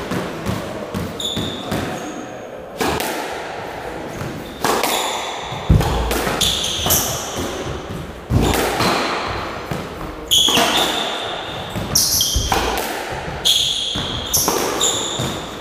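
A squash rally: sharp cracks of the ball struck by rackets and hitting the court walls, about one every one to two seconds, ringing in the enclosed court, with short high squeaks of shoes on the wooden floor between shots.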